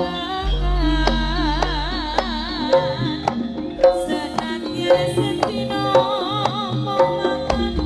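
Jaranan gamelan music: hand-drum strokes keep a steady beat under sustained metallophone tones, with a wavering, vibrato-laden melody above.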